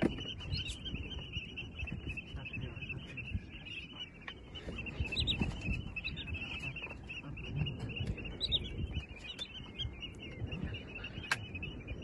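A flock of wading shorebirds calling: a steady, dense high chirring, with a few separate falling call notes about five and eight seconds in. A low rumble runs underneath.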